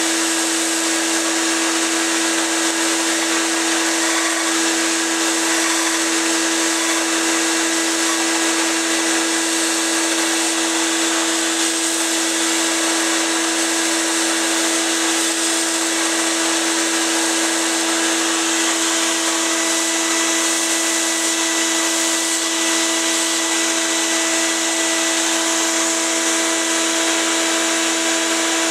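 Bench power tool running with a steady motor hum and a high hiss while a stainless steel knife blank is fed against its narrow moving band to shape the blade profile.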